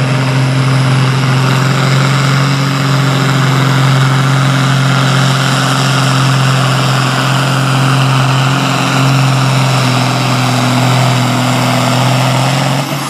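Farmall farm tractor's engine running hard at a steady pitch under full load as it drags a weight-transfer pulling sled.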